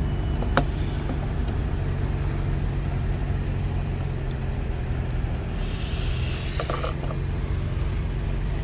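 Hands and tools working a plastic retainer clip on the engine-bay air-intake scoop, with a sharp click about half a second in and light scraping and clicking around two-thirds of the way through, over a steady low hum.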